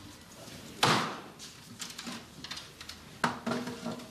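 A sudden heavy thud about a second in, followed by a few small knocks and clicks and a second, sharper knock about three seconds in.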